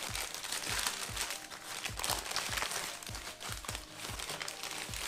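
Newspaper packing being crumpled and unwrapped by hand, a continuous paper crinkling and rustling, over background music with a steady low beat.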